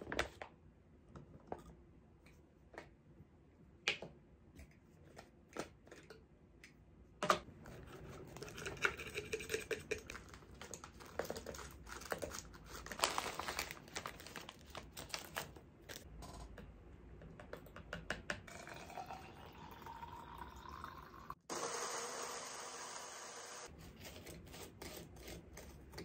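Quiet kitchen sounds of a breakfast being made: light taps and clicks of utensils and containers, then liquid poured into a container, its tone rising as it fills, and a brief hiss near the end.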